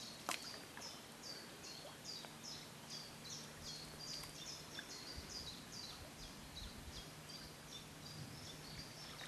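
A small songbird singing a long series of short, high, down-slurred notes, about three a second, at a steady rhythm.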